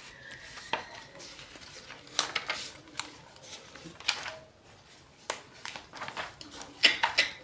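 Pages of a children's storybook being flipped by hand: an irregular run of paper rustles and light taps, some sharper than others.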